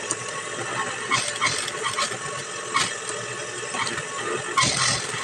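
Juki industrial sewing machine's motor running with a steady hum, with a few scattered clicks and knocks.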